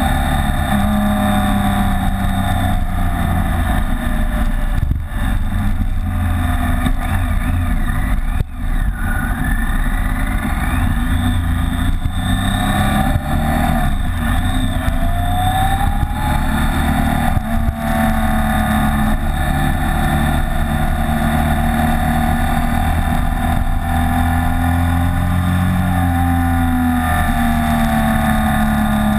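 BMW K75 motorcycle's three-cylinder engine running at road speed, its pitch rising and falling several times as the bike throttles through bends, over a steady rush of wind noise.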